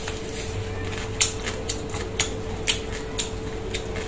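Sharp clicks, evenly spaced about twice a second, over a steady hum.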